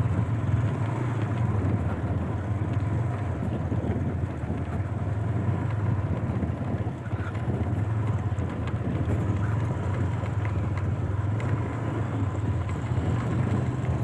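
Motorcycle engine running steadily while being ridden, a constant low hum under road and wind noise.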